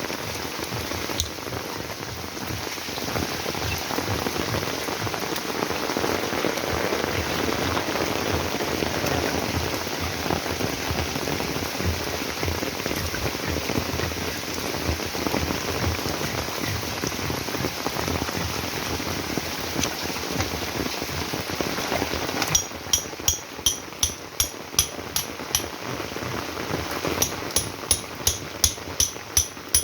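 Heavy rain falling steadily. About 22 seconds in, the rain gets quieter and a regular series of sharp ticks starts, about three a second.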